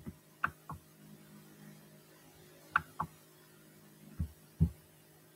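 Pairs of faint, sharp clicks a quarter second apart over a steady low electrical hum, with two dull thumps about four seconds in.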